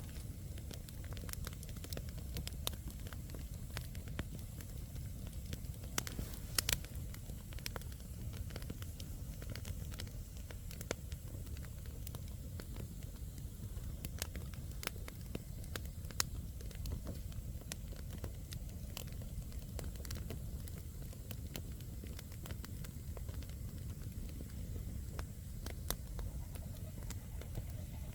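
Wood campfire burning: a steady low rumble with scattered sharp crackles and pops from the burning logs, the loudest a quick pair about six and a half seconds in.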